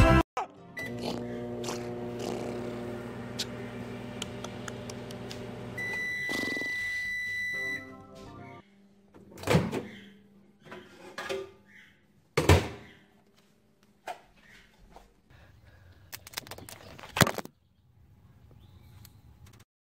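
Microwave oven running with a steady hum, then a long single beep about six seconds in; after that, several scattered thumps.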